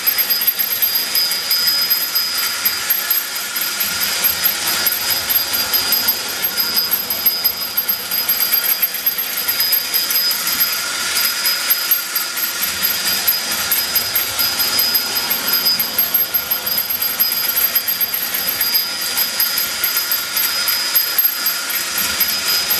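Hafner clockwork toy train running steadily around the track with a dense, rapid clicking. The 1180 tender's bell rings continuously as its little flapper strikes the ties.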